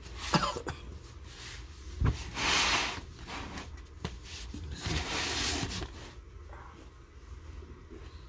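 A man blowing out two long, hard breaths with effort while handling a heavy load. There is a sharp click near the start, a knock about two seconds in, and some scuffing.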